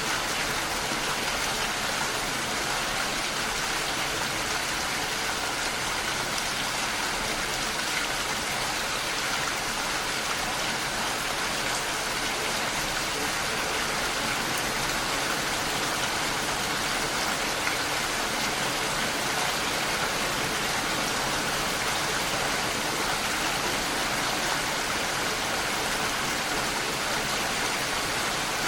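Steady rain falling, an even hiss with no thunder and no single drops standing out.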